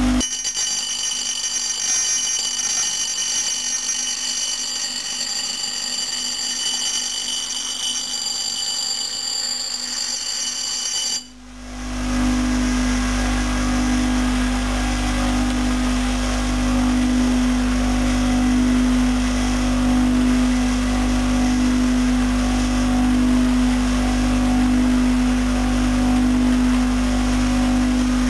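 Bench grinder grinding an old, battered axe head against its stone wheel: a high, whistling grind of steel on the wheel. About 11 seconds in the sound cuts off briefly, and then the grinder's motor runs on with a steady hum and nothing held to the wheel.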